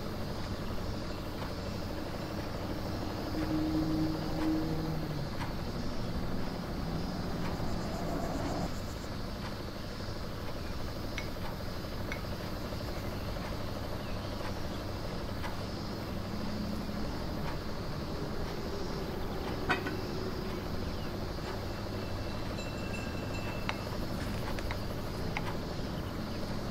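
Steady low rumble of a large vehicle's engine running, with occasional light clicks of a wooden spoon against a ceramic bowl and faint high beeps near the end.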